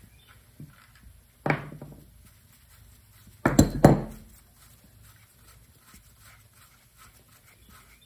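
Metal clanks and knocks as a stuck servo cover is worked by hand on an aluminum Powerglide transmission case: one sharp clank about a second and a half in, then a louder double knock about two seconds later.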